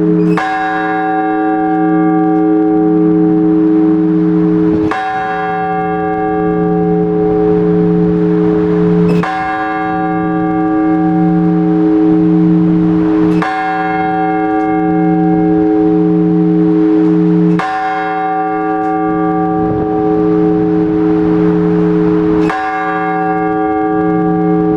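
A single large Orthodox church bell struck in slow, even strokes, six in all, about one every four seconds: the blagovest rung to call the faithful to the all-night vigil. Each stroke rings on into the next over a low, pulsing hum.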